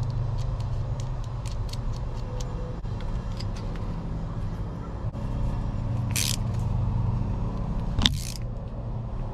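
A steady low motor hum, like a running engine, under faint clicks and a couple of short scraping hisses as small metal parts of a rivet-nut tool are handled.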